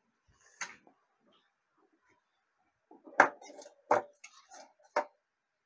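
Sharp knocks and clicks of objects being handled on a kitchen counter: a single click about half a second in, then three louder knocks with smaller rattles between them from about three seconds in.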